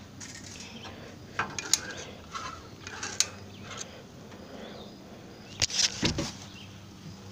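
Hand-operated come-along cable winch being ratcheted: irregular metallic clicks and knocks from the ratchet as the handle is worked, with a louder clatter about six seconds in.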